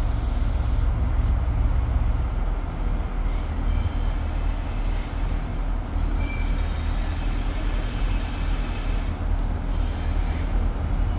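Diesel locomotive engine, Irish Rail 071 class No. 081, running with a steady deep rumble during a run-round, with a short hiss of air in the first second.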